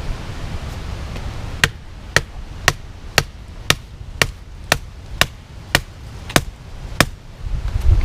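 A steel knife blade striking hard, dense ironwood in eleven sharp, evenly spaced chops, about two a second, as a notch is cut into the wood. Low wind rumble on the microphone runs underneath.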